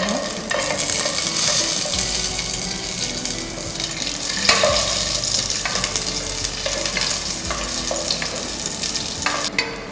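Cashew nuts sizzling as they fry in hot ghee in a nonstick pot, stirred with a spatula.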